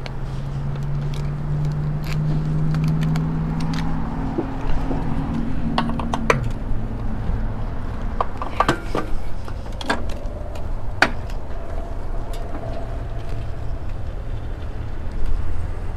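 Clicks and rattles of an ABUS folding bike lock and its keys as the lock's links are unfolded and wrapped around an e-bike frame, most of them between about four and eleven seconds in. A steady low hum runs under the first few seconds.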